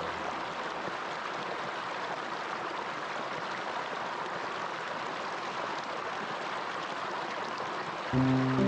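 Running water, a steady rushing with no break. Music comes in near the end.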